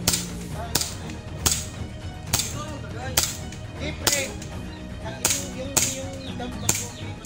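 Airsoft guns firing single shots, about ten sharp cracks at uneven intervals of roughly a second, over a steady low rumble of wind on the microphone.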